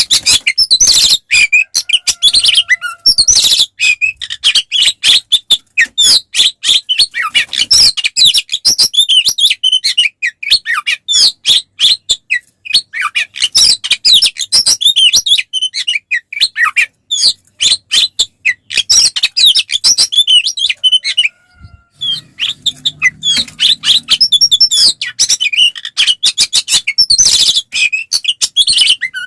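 Oriental magpie-robin (kacer) singing a fast, unbroken stream of chirps, trills and whistles, with a short pause about three quarters of the way through.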